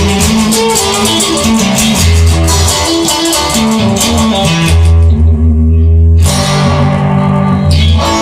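Instrumental music led by guitar over a strong bass line.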